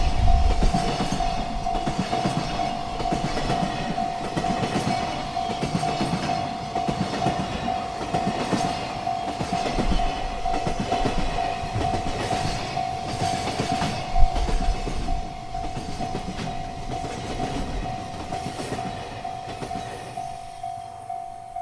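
Freight train rolling past a level crossing, its wagons' wheels clattering over the rail joints. A steady warning tone from the crossing signal sounds throughout. The train noise fades off near the end.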